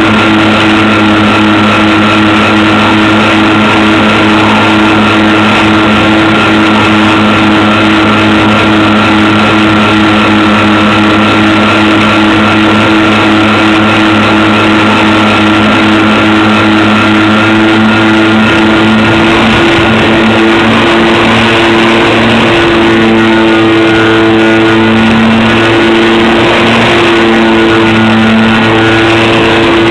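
Twin electric motors and propellers of a home-made RC plane running steadily, a loud whine of several fixed pitches; after about two-thirds of the way the pitches start to waver and split apart as the two motors drift off each other's speed.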